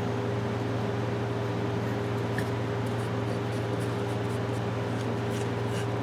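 Steady mechanical hum from a running motor, unchanging in pitch and level, with a few faint light ticks over it.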